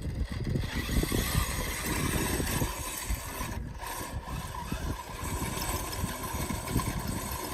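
Engine of an off-road competition vehicle running hard at high revs, with a brief drop about halfway through. Wind buffets the microphone.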